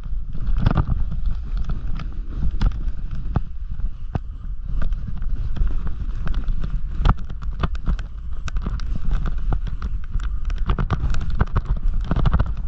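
Snowboard riding through soft, chopped-up powder: the board hissing and scraping over the snow, with many irregular small knocks as it chatters over bumps, over a low rumble of wind on the microphone.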